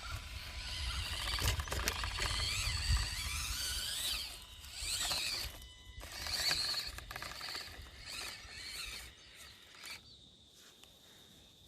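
Axial SCX24 micro crawler's small electric motor and gears whining in short spells. The pitch slides up and down as the throttle comes on and off. The whine dies away near the end.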